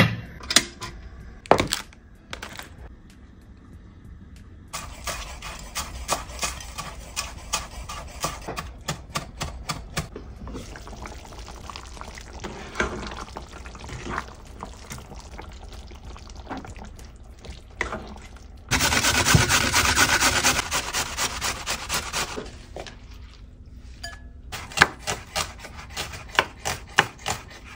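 Kitchen cooking sounds: a metal pot lid clatters at the start, then long runs of quick clicking, and a loud, steady hiss for a few seconds in the middle. Near the end a knife chops quickly on a wooden chopping board.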